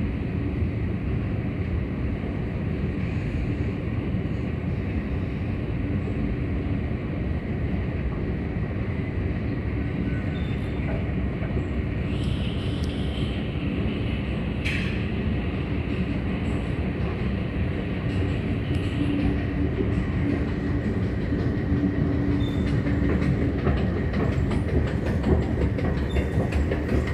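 Long metro-station escalator running steadily, with a low mechanical rumble and a steady hum. There is one brief sharp squeak about halfway through. Near the end comes a run of rapid clicking as the steps pass into the comb plate at the top landing.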